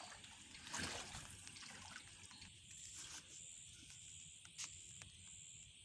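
Faint outdoor quiet with a thin high-pitched chirp from an insect, repeating in short pulses from about three seconds in, and a few faint clicks.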